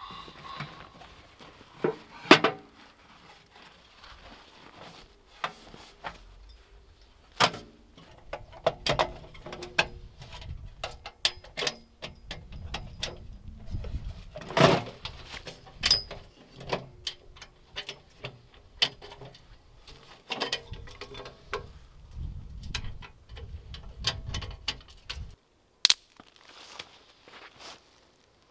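Camp gear being handled by hand: an irregular run of clinks, knocks and rustles with a few sharper strikes.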